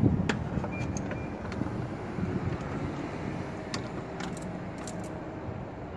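Scattered sharp metallic clicks of a ratchet wrench and battery mounting hardware as a replacement car battery is fitted, a few near the start and a quick cluster about four to five seconds in, over a steady low rumble.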